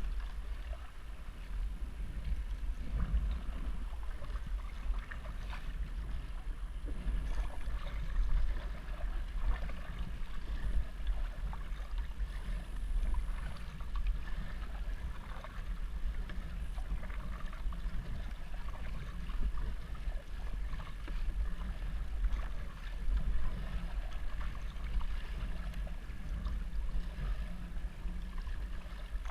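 Water splashing and lapping irregularly around a kayak as it is paddled, over a steady low rumble.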